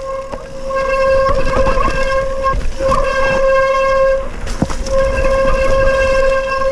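Mountain bike disc brakes squealing, a steady high-pitched howl that drops out twice as the brakes are let off, over the rattle and knocks of the bike riding a rough descent.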